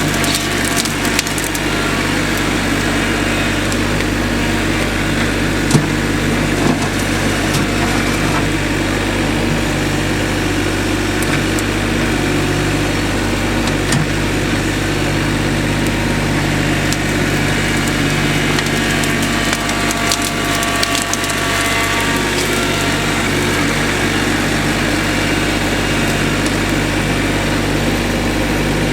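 An engine running steadily, with a few short knocks and cracks of wood over it.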